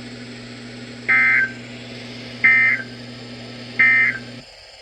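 Emergency Alert System digital data bursts: three short, buzzy warbling tone bursts near 2 kHz about a second and a third apart, the End of Message code that closes the alert. A steady low hum runs underneath and cuts off near the end.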